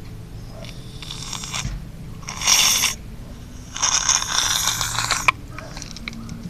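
Shaving foam spraying from an aerosol can in three hissing, sputtering bursts, the last and longest about four seconds in and cut off suddenly.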